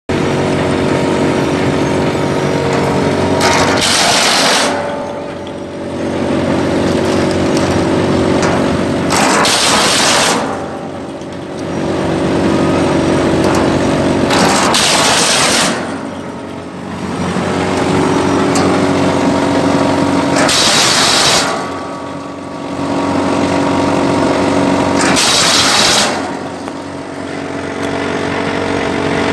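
Extra-large feed cutter (SC-7000) driven by a three-phase 10-horsepower electric motor, running with a steady hum while its blades chop plastic pipe. A harsh chopping noise of about a second comes roughly every five to six seconds, each followed by a brief dip in loudness.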